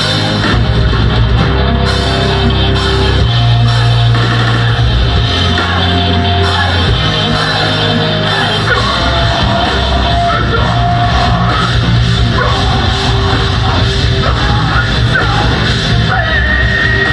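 Metalcore band playing live: distorted guitars and drum kit over sustained low notes that change every second or two, with yelled vocals.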